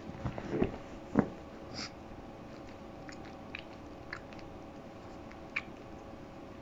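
A pug snuffling and snorting with her face pressed into a lap, with a few louder short noises in the first second and a half, then a handful of faint sniffs.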